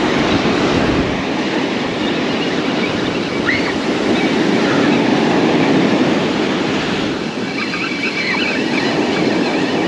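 Spinning reel being cranked steadily to reel in a fish, with surf washing behind it.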